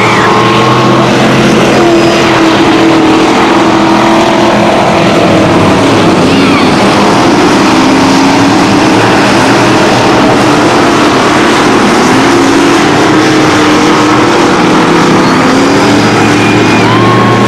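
Several dirt-track stock car engines racing, their pitch rising and falling as they throttle on and off around the oval. Very loud and continuous.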